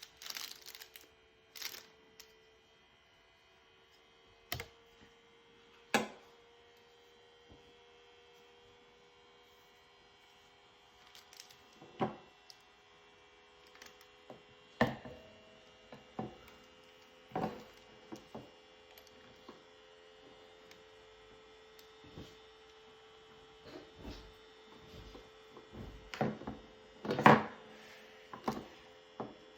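Irregular clicks and knocks from objects being handled, a few seconds apart and loudest near the end, over a faint steady electrical hum.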